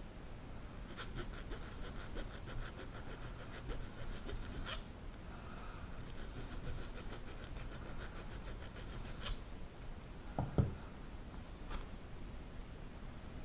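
A small file rasping in quick short strokes on a wafer from a SAAB 9-5 ignition lock cylinder, filing its top down so it stops catching in the lock. A few sharp clicks and a low knock about ten seconds in.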